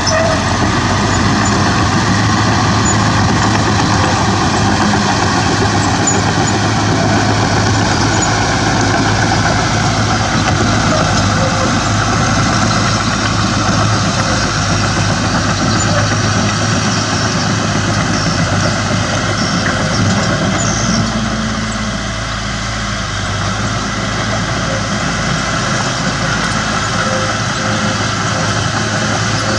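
Heavy diesel engine of earthmoving machinery running steadily with a deep, even hum; it eases off briefly about three quarters of the way through.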